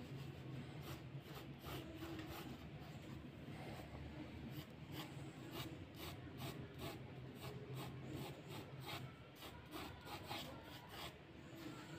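Graphite pencil scratching across drawing paper in a run of short, quick strokes, several a second, as sketch guidelines are laid down. A faint steady low hum sits underneath for the first half.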